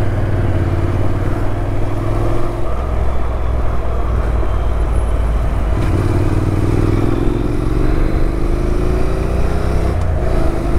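Honda motorcycle engine and heavy wind rumble while riding, picked up by a lavalier mic close to the rider's mouth. About six seconds in, the engine note climbs steadily as the bike accelerates, with a brief break near the end.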